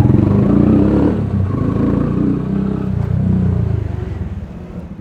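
Yamaha YBR125G single-cylinder motorcycle engine under way, its pitch rising and falling with the throttle, then easing off and getting quieter near the end.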